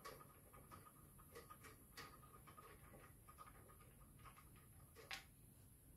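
Near silence, with a few faint clicks of a motorcycle fork cap being unscrewed by hand. The loudest click comes about five seconds in.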